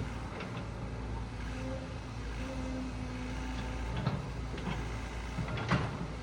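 SANY SY95 excavator's diesel engine running steadily under load while it works a pine tree out of the ground, with a couple of sharp cracks, one about four seconds in and a louder one near the end.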